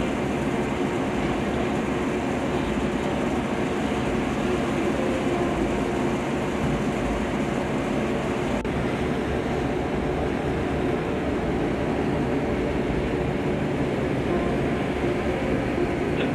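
Steady drone of a warship's machinery running, with a few constant hums under an even rushing noise.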